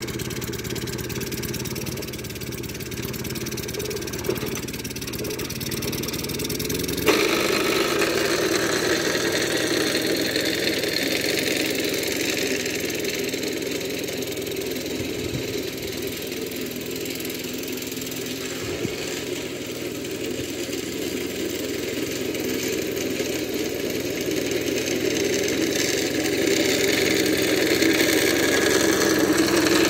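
Late-1940s Atco Lightweight 12-inch cylinder lawn mower, its small petrol engine running steadily as it is pushed through long grass. About seven seconds in the sound abruptly turns fuller and louder, and it grows louder again near the end as the mower comes close.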